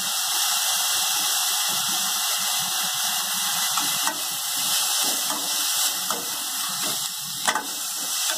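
Mixed vegetables sizzling as they are stir-fried in a stainless steel kadai, with a metal slotted spoon scraping and clicking against the pan a few times; the loudest knock comes near the end.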